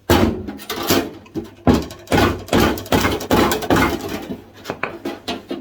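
A mallet striking the welded bottom edge of a Ford Consul Mk1's steel driver's door over and over, about two blows a second, each a sharp knock with a short ring. The blows are knocking the three-layer seam of the new patch straight.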